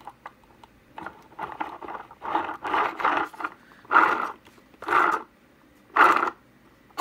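A 3D-printed robot wheel spun by hand, back-driving its plastic 4.3:1 planetary gearbox and brushless motor. It gives a rough whirring growl, then short whirring bursts about once a second, each dying away within half a second as friction in the gearbox stops it.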